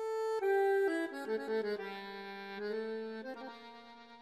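Background music on an accordion-like reed instrument, playing a slow melody over long held chords and growing quieter toward the end.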